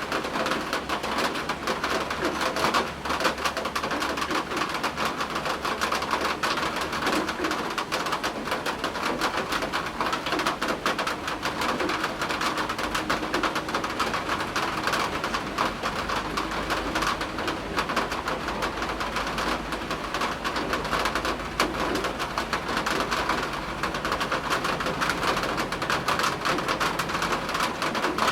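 Steady rain pattering in a dense, even crackle, with a pigeon cooing low in the background at times.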